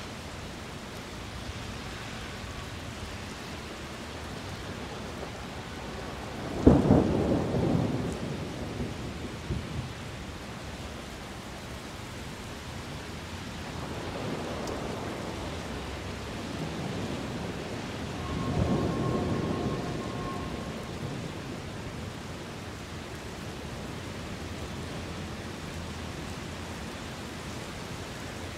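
Thunder over a steady hiss of rain. About a quarter of the way in comes a sharp, close crack that rumbles off over a few seconds, the loudest sound here. Two softer, rolling rumbles follow later.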